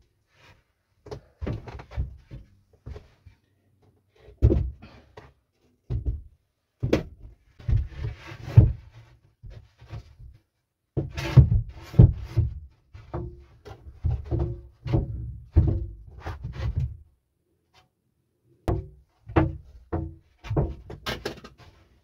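Large fire-resistant silicate board being handled and set down on the floor: a series of irregular thunks and knocks in bursts, with short pauses between them.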